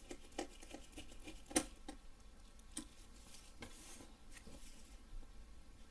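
Faint light clicks and taps of a graphics card's plastic fan shroud and fan blades being handled in nitrile-gloved hands. The clicks come in a quick run over the first two seconds, the sharpest about a second and a half in, then only a few more, spaced out.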